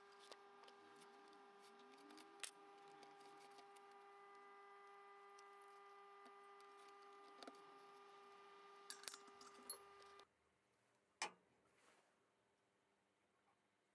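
Near silence: a faint steady hum with a few light metallic clicks as a piston and its rings are handled. The hum stops abruptly about ten seconds in, leaving one more click.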